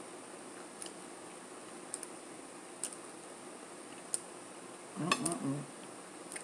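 Light, sparse clicks of cutlery against a plate while eating, about five spread over the few seconds. A short vocal sound comes about five seconds in.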